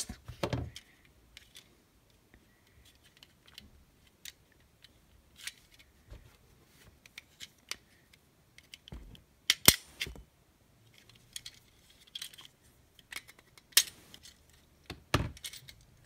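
Scattered plastic clicks, taps and snaps as a wall socket's plastic housing is pried apart with a flat screwdriver and its snap-fit clips let go. The sharpest snaps come about ten seconds in and again near the end.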